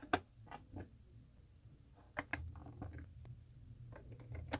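Plastic LEGO bricks clicking as they are handled and pressed together: a scatter of light, irregular clicks.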